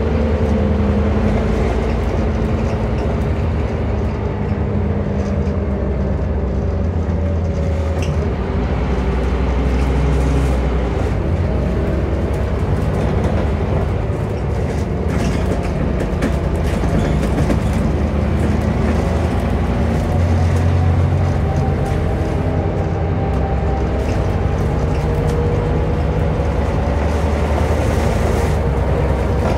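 Scania N230UD double-decker bus heard from inside the passenger saloon while driving along: the DC09 five-cylinder diesel engine and ZF Ecomat automatic gearbox hum steadily, their pitch slowly rising and falling with speed, with a few short rattles from the bodywork.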